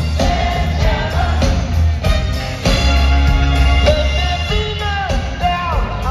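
Live rock band playing, with a heavy steady bass and singing over it, heard loud from within the crowd.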